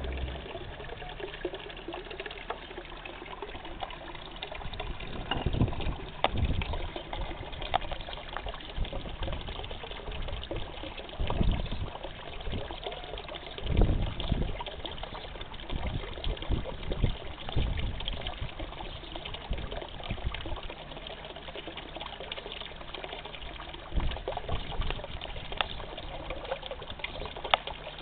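Steady trickle and splash of running water in a garden fish pond, with a few short low rumbles on the microphone.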